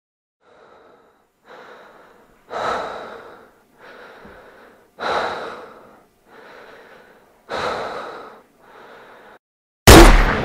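A person breathing heavily, softer and louder breaths alternating about once every second and a quarter. Near the end a sudden loud bang cuts in and rings away.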